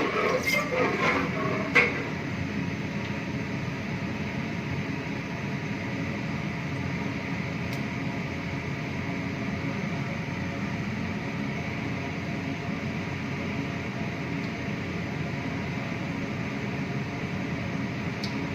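Steady hum and hiss of commercial kitchen equipment, such as a gas range and extraction, around a heavy pot of hot oil with mustard and fenugreek seeds that are only just starting to crackle. There is a sharp click about two seconds in and a faint tick or two later.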